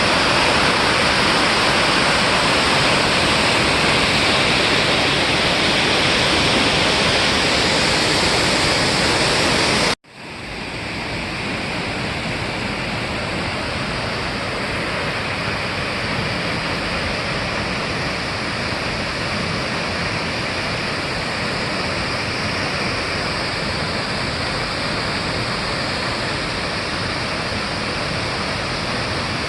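A waterfall rushing steadily in a dense hiss of falling water. About ten seconds in, the sound cuts out for an instant and resumes slightly quieter and less hissy, then runs on steadily.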